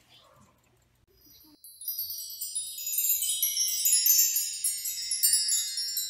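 About a second and a half in, a wind chime sound starts: many bright, high ringing notes overlap in a shimmer, with lower notes joining as it goes on.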